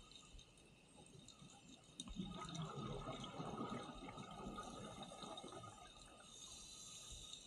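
Scuba divers' exhaled regulator bubbles heard underwater, with a burst of bubbling starting about two seconds in and lasting about three seconds over a faint steady hiss. The audio is sped up to double speed.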